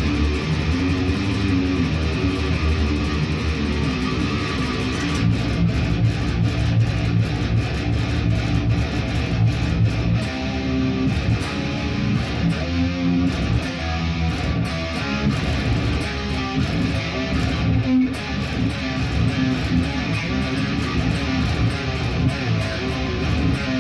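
A guitar played continuously, a run of changing notes and chords without a break.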